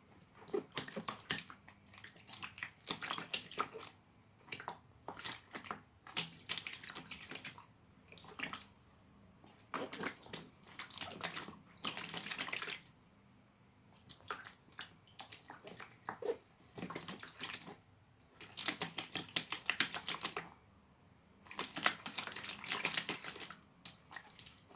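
A ferret pawing and digging at shallow water in a plastic tub, splashing in irregular bursts with brief pauses between.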